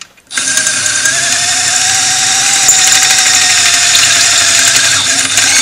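Electric drill with a step drill bit boring a hole through thin material in the engine housing, a steady whine. It starts a moment in and stops at the end.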